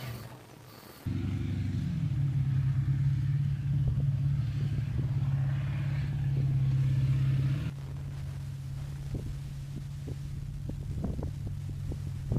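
PzH 2000 self-propelled howitzer's diesel engine running steadily as the vehicle drives across a field, a low drone that starts abruptly about a second in and drops to a quieter level a little past halfway.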